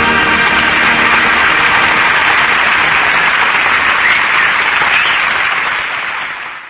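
Studio audience applauding, a dense even clatter of many hands that fades out near the end.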